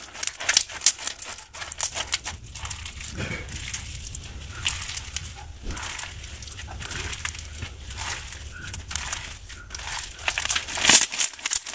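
Crunchy slime packed with foam beads being kneaded and stretched by hand: a dense run of crackles and small pops, loudest about ten seconds in. The beads are still stiff, so the slime is being worked to loosen it.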